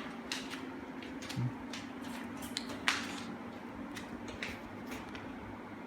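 A few faint, scattered clicks and small knocks, the strongest about three seconds in, over a steady low hum of room noise.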